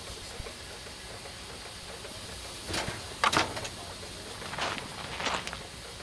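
Short bursts of steam hissing from a steam engine over a steady background hiss, four in all, the loudest a little past three seconds in.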